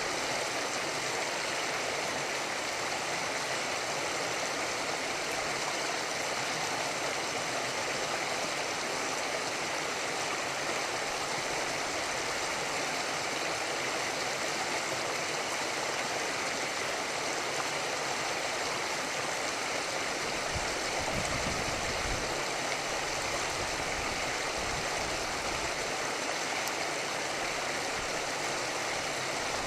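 River water flowing steadily past the embankment, an even rushing noise, with a few brief low rumbles about two-thirds of the way through.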